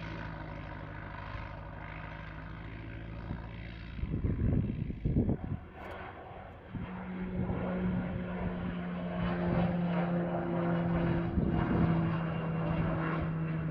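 Daher TBM 910 single-engine turboprop running with a steady propeller drone. A loud rumbling burst comes about four seconds in, and from about seven seconds a steady engine tone grows louder.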